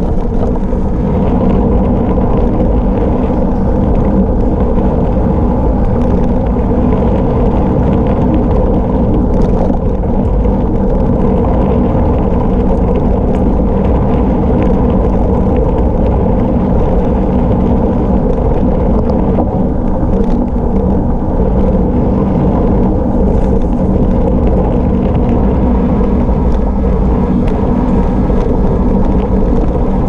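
Gravel bike on MAXXIS Rambler 700x40C tubeless tyres running fast downhill on a rough gravel road: a loud, steady rumble of tyres on gravel, with small rattles from the bike and wind noise on the action camera's microphone.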